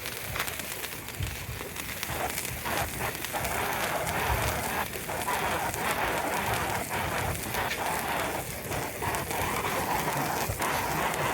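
A lit firework burning on the ground with a continuous crackling hiss, which grows louder about two seconds in and then holds steady.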